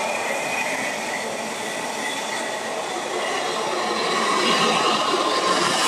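Container freight train passing along the track beside the platform, a steady rush of wheels and wagons.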